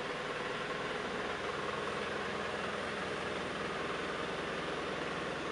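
MSC 10" x 54" vertical knee milling machine running steadily under power, an even mechanical running sound with no change in speed.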